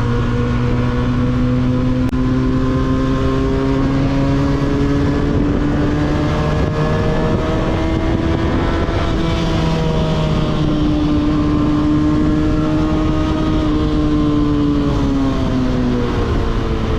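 A 300 cc motorcycle engine with an aftermarket 302s exhaust, heard on board while riding. The exhaust note climbs slowly and steps a couple of times along the way, then falls away over the last few seconds, over steady wind rush.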